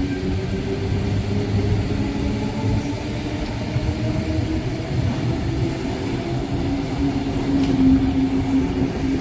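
Sydney Trains electric suburban train moving along the platform, a loud steady rumble of wheels on rails with a low motor hum.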